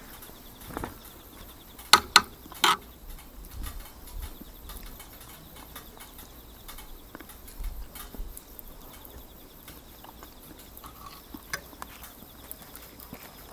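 Wood fire crackling with scattered small pops, and three sharp knocks about two seconds in.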